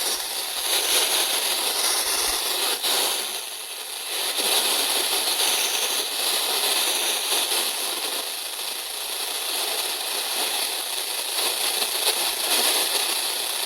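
Radio receiver static: a steady hiss with faint crackle from a set tuned to a weak or empty station.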